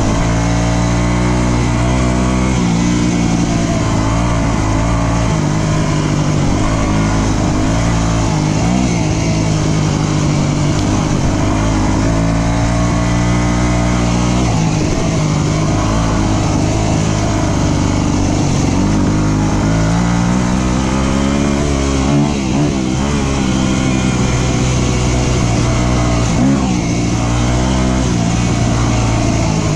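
Dirt bike engine running with its pitch rising and falling as the throttle opens and closes, over a steady rush of noise.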